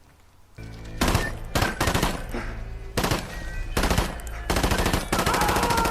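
Movie gunfire: rapid shots in quick succession, starting about half a second in. Held tones enter near the end.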